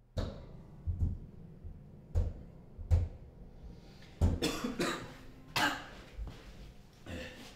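A man coughing repeatedly, about seven harsh coughs spread over several seconds.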